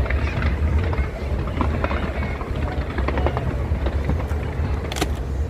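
Skyscraper fireworks display going off in a dense, continuous rumbling barrage of bangs, with one sharp crack about five seconds in.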